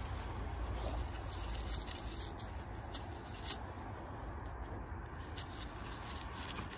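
Dry fallen leaves rustling and crackling irregularly under the paws of two Weimaraner puppies as they scuffle and wrestle, over a steady low rumble.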